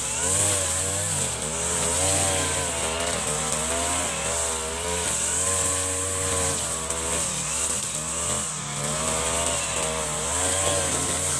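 Brush cutter engine running as it cuts grass and weeds, its pitch rising and falling over and over as the load and throttle change.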